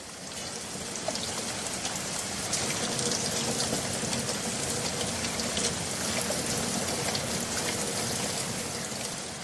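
Rain falling, a steady hiss with fine crackling patter, fading in at the start and fading out near the end.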